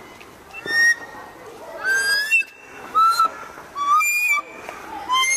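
Hand-pumped air whistle sculpture: pump handles pushed down drive air through pipes, giving a run of about five short hooting whistles, each at a different pitch.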